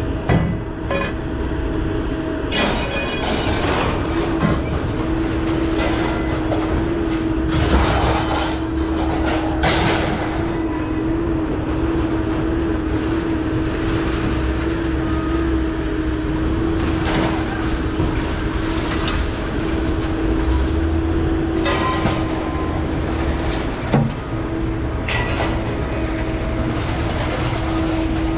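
Vehicle in motion: a steady low rumble with a constant hum, broken by scattered rattles and knocks.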